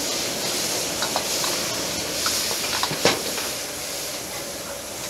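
Food hissing and sizzling in a steaming wok over a gas burner, with a metal ladle scraping and knocking against the wok in a few light clicks and one sharp clank about three seconds in.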